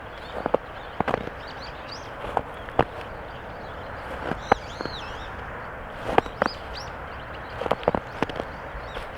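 Footsteps crunching and squeaking in snow (the Korean 뽀드득), slow and uneven, each step a short sharp crunch.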